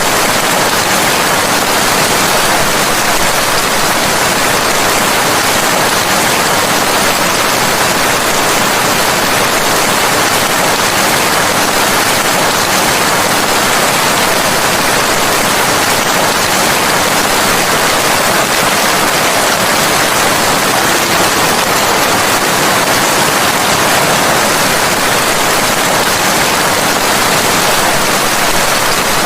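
Steady rain falling: a dense, even hiss with no single drops, thunder or other sounds standing out.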